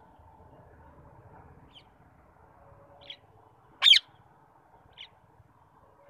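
Rose-ringed parakeet giving one loud, short shriek just before four seconds in, with a few fainter brief chirps before and after it.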